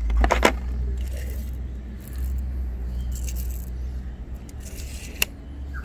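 Tape measure being handled: a few clicks and a scrape of the blade, with one sharp click near the end, over a steady low rumble.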